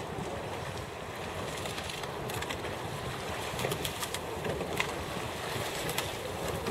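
Wind buffeting the microphone as a steady low rumble, with a few faint scattered clicks from about two seconds in.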